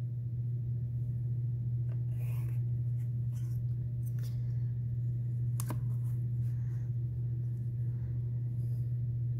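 A steady low hum, over faint scratching and clicks of a colored pencil and a wooden ruler being handled on construction paper, with a sharper click about five and a half seconds in.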